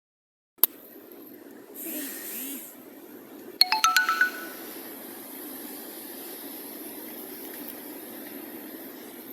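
A phone-style ringtone or notification chime: a quick run of short, bright electronic notes about three and a half seconds in, over steady background noise.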